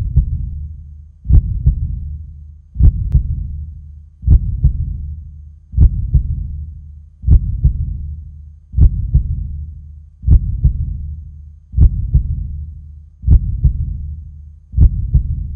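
Heartbeat sound effect: deep double thumps, lub-dub, about every second and a half, each fading out in a long tail.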